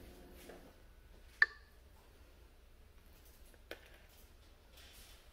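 A single sharp clink of kitchenware with a short ringing tone about a second and a half in, then a fainter tap near four seconds, over quiet room tone.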